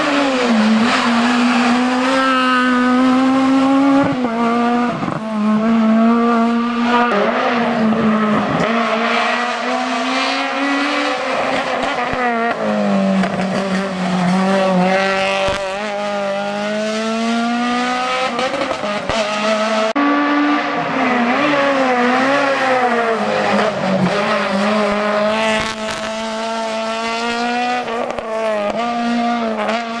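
Small rally cars, a Renault Clio and a Peugeot 106, racing up a mountain hillclimb one after another: engines revving hard, the pitch climbing through each gear and dropping back at every shift and on lifting for the bends.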